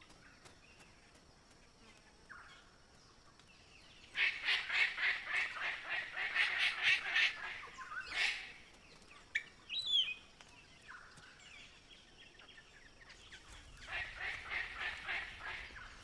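Palm cockatoos calling. A rapid run of harsh repeated notes lasts about four seconds. A rising whistle and a sharp short call follow, and a second, shorter run of harsh notes comes near the end.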